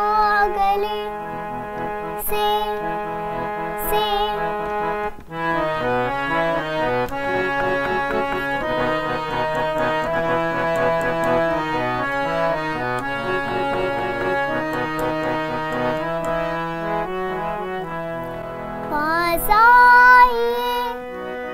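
Harmonium playing a melodic interlude over held chords. A girl's singing voice holds a wavering note at the start and comes back in near the end.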